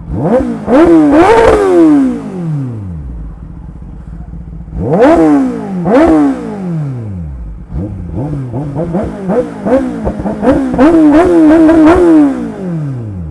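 Motorcycle engine revved hard in three bursts of quick throttle blips, the pitch shooting up and dropping back to idle each time, the last burst a rapid string of blips ending in a held high rev.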